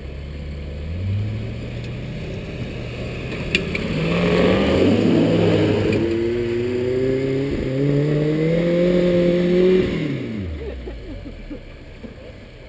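Land Rover Discovery's engine revving under load, with wheels spinning and throwing dirt on a grassy slope. The revs climb steadily for several seconds, then drop away about ten seconds in.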